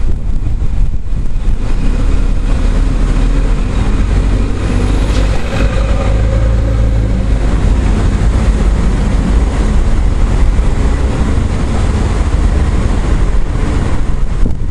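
Strong storm wind buffeting the microphone with a steady low rumble. Partway through, a vehicle's engine hum rises and fades under it.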